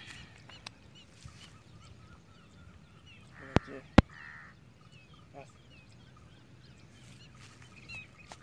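Birds chirping and calling in the background, with two sharp clicks about half a second apart near the middle.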